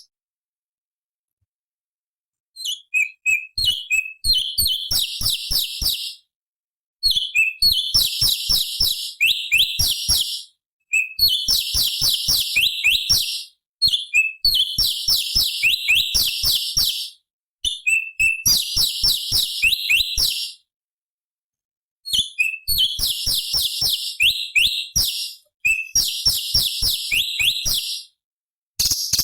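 Cucak cungkok, a leafbird, singing in a series of fast, dense chattering phrases, each two to four seconds long with short pauses between them, beginning about two and a half seconds in.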